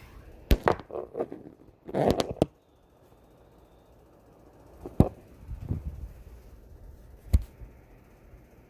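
Scattered sharp knocks and clicks: a quick cluster in the first two and a half seconds, then two single sharp knocks about five and seven and a half seconds in.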